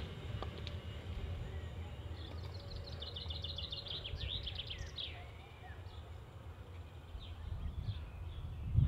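A small bird singing a rapid trill of repeated high notes for a few seconds, with scattered chirps afterwards, over a steady low rumble as a container freight train recedes. A brief low thump near the end.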